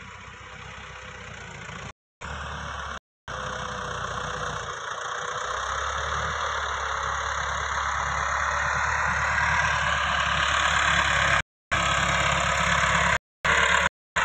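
Massey Ferguson 260 tractor's three-cylinder diesel engine running under load as it pushes soil with its front blade, growing steadily louder as it comes closer. The sound cuts out to silence for brief moments several times.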